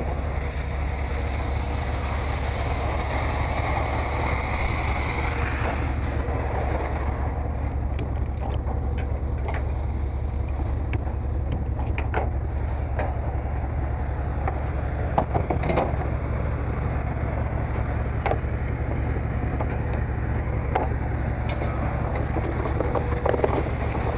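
Scrap metal auto parts being unloaded by hand, with sharp metal clanks scattered irregularly after the first few seconds, over a steady low rumble.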